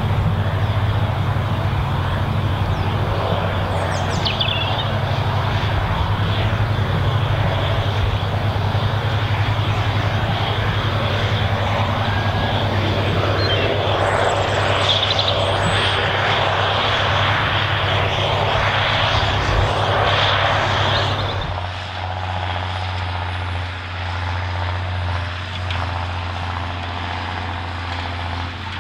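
John Deere tractor's diesel engine running steadily under load as it pulls a tined cultivator through tilled soil, a constant low drone. A few short bird calls sound over it, and the drone is a little quieter for the last part.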